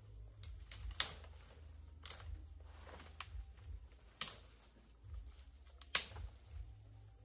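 A series of sharp knocks at an uneven pace: four loud ones and a few fainter ones between.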